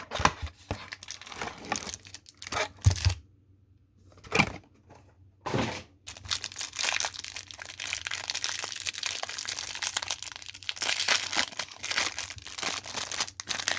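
Plastic wrapping and cardboard of a hanger box of trading cards being torn open and crinkled by hand, in dense, uneven crackles. A silent gap of about a second breaks it a quarter of the way in.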